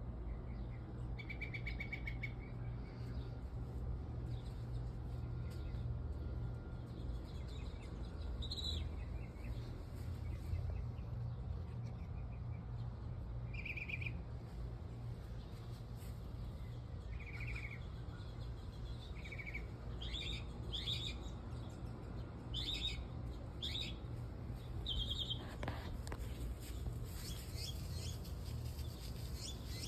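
Birds chirping: short, scattered chirps, sparse at first and coming more often in the second half, over a steady low hum.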